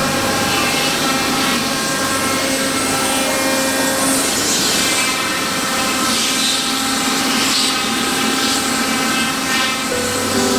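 Large CNC milling machine cutting wood with a steady rasping sound as it carves a wood pattern, under background music.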